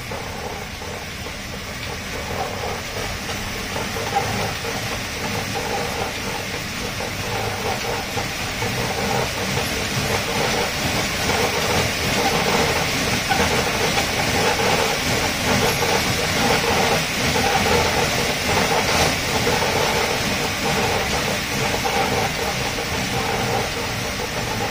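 A dog running on a treadmill (carpet mill): the belt and rollers run with a steady mechanical rumble and rattle under its paws, mixed with hissing panting. It grows louder over the first ten seconds or so, then holds steady.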